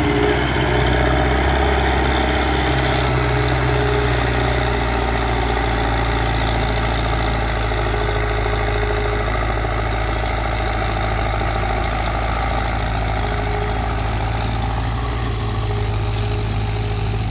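Belarus MTZ-50 tractor's four-cylinder diesel engine running steadily under load as it hauls a trolley loaded with mud up an earth ramp.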